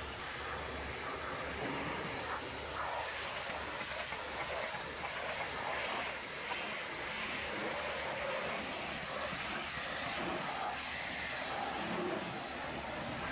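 Hot-water pressure washer jet spraying the truck's cab panels and wheel: a steady hiss of water over a low steady hum.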